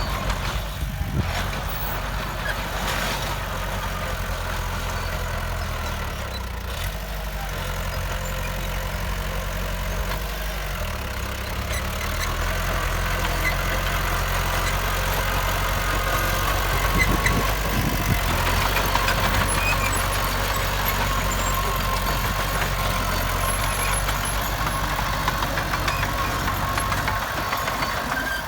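Heavy diesel engine of earth-moving machinery running steadily, its low drone shifting in pitch a few times as the load changes.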